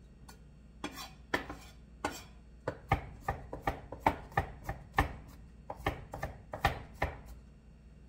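Chef's knife chopping garlic on a wooden cutting board: a run of quick, irregular knife strikes, roughly three a second, starting about a second in and stopping about a second before the end.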